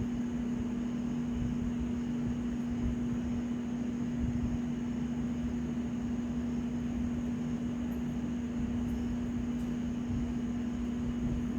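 Steady background hum from a running machine such as a fan or air conditioner: one constant low tone over a rumbling noise, with a couple of faint light ticks about two-thirds of the way in.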